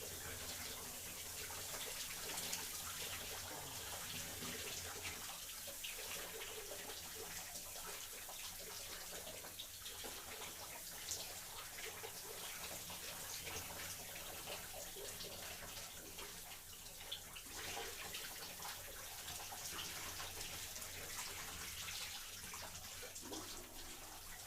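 Shower running steadily, water spraying and splashing with fine irregular patter.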